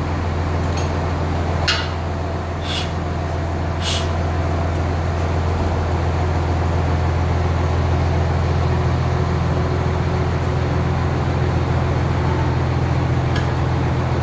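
A steady, loud low machine hum, with a few sharp metallic taps in the first four seconds.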